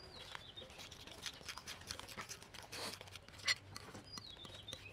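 Spoon stirring thick, wet flour batter in a bowl: irregular soft squelching and scraping, with a sharper click now and then.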